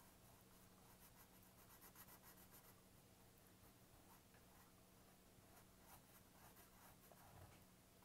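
Faint scratching of a black felt-tip marker on paper in short, repeated strokes as small circles are drawn and filled in, over a faint steady hum.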